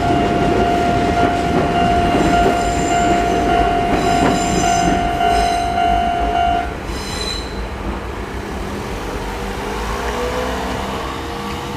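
An old-type electronic level-crossing warning bell ringing loudly at a slow tempo over the rumble of a passing Izuhakone Daiyuzan Line electric train. The bell and the train noise stop about two-thirds of the way through. A faint rising whine follows near the end.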